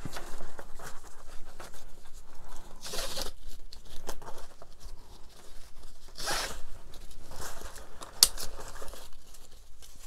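Velcro strap organizers being peeled open on nylon webbing straps: a couple of short ripping bursts about three and six seconds in, with rustling of the webbing being handled between them and a brief sharp sound near the end.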